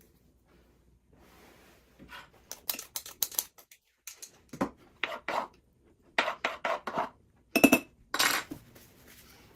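Kitchen utensils and dishes clinking and clattering in a run of short, sharp knocks. The loudest is a clink near the end that rings briefly.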